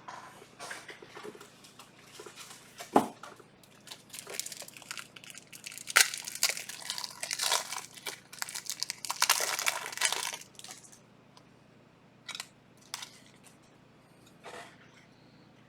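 Panini Prizm trading card pack wrappers crinkling and tearing, with sharp clicks and rustling as the cards are handled. It is busiest from about four to ten seconds in, then only a few scattered clicks.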